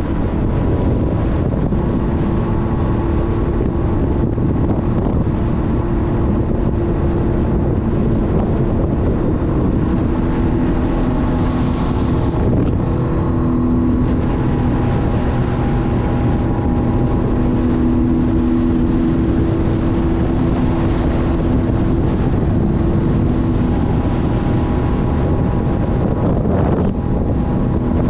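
Sea-Doo personal watercraft under way, its engine giving a steady hum that shifts pitch slightly now and then, with wind buffeting the microphone.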